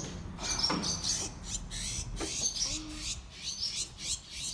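Small birds chirping rapidly and repeatedly in high, quick calls around a nest, stirred up by the baby bird just put back on the ledge beside it.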